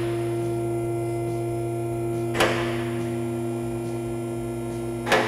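Two-post vehicle lift's electric hydraulic pump motor running with a steady hum as it raises the car, with two sharp clicks, one midway and one near the end.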